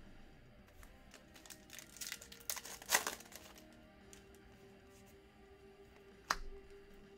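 Crinkling and rustling of a plastic trading-card pack wrapper being torn open and handled, loudest about three seconds in, with a single sharp tap near the end. Quiet background music with a held note runs underneath.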